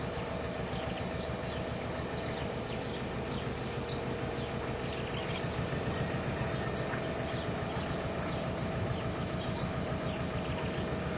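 Canal narrowboat engine running with a steady, even chug as the boat gets under way. Birds chirp now and then over it.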